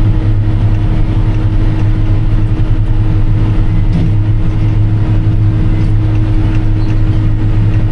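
Farm machinery running steadily under load while chopping rye: an even engine drone with a constant low hum and a steady higher tone, no change in pitch or speed.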